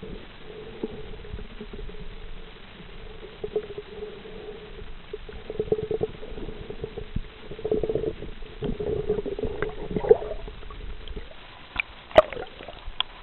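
Muffled underwater sound from a camera held below the surface: a steady low hum with irregular crackling and knocking from the water and handling, and a few sharp clicks near the end.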